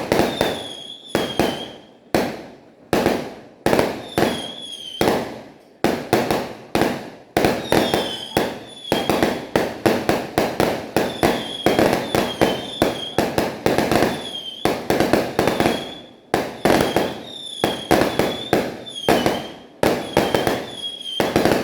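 Fireworks and firecrackers going off in rapid succession: sharp bangs about two a second, each dying away in an echo, with short high whistles among them.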